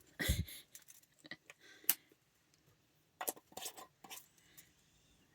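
Scattered light clicks and taps of measuring spoons and spice containers being handled: a soft thump just after the start, a sharp click about two seconds in, and a few quick taps a little later.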